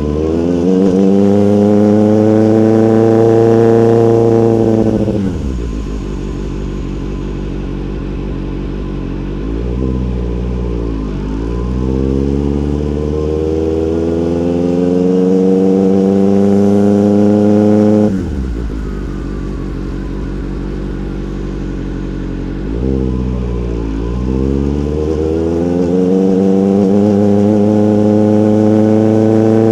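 Motorcycle engine and exhaust under way, pulling hard with the pitch climbing for several seconds at a time. The rider rolls off the throttle twice and the sound drops suddenly. Each time it runs steadier and quieter before a quick dip and rise in pitch, then pulls again.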